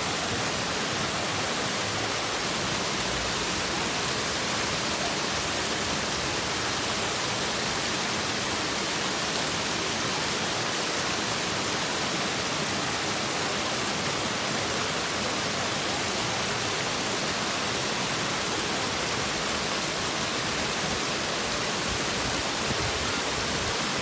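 Small waterfall cascading over stepped rocks into shallow pools: a steady, hissing rush of falling and splashing water.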